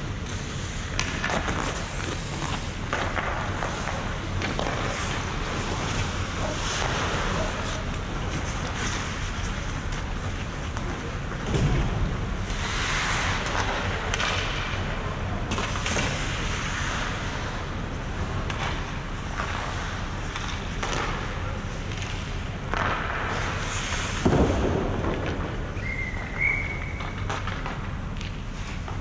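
Ice hockey practice on a rink: skates scraping the ice, with sticks and pucks clattering and knocking. The loudest knocks come about twelve and twenty-four seconds in.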